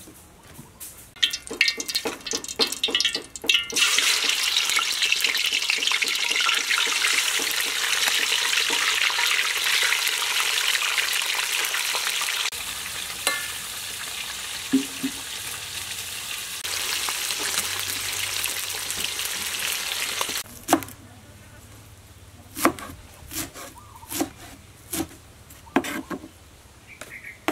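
Food sizzling loudly as it fries in a pan and is stirred with a spatula, a steady hiss over most of the stretch. It stops suddenly about two-thirds of the way through. Then a kitchen knife chops green herbs on a wooden cutting board in sharp, irregular knocks.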